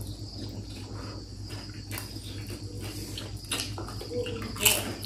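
People slurping and chewing instant ramen noodles, with scattered short slurps and fork clicks against plates, the loudest slurp near the end. A steady high-pitched hum runs underneath.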